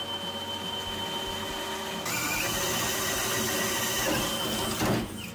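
Cordless drill boring a hole through a Jeep's body sheet metal, its motor running at a steady high whine. About two seconds in it turns louder, the pitch dipping and then climbing back. Just before the end the drill winds down and stops.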